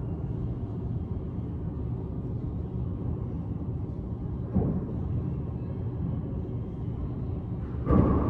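A handball struck by a gloved hand near the end: one loud, sharp smack that echoes around the enclosed four-wall court, with one lighter knock of the ball about halfway through. A steady low rumble runs underneath.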